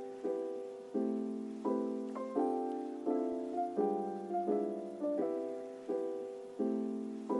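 Background music of slow piano chords, one struck about every two-thirds of a second and each fading before the next.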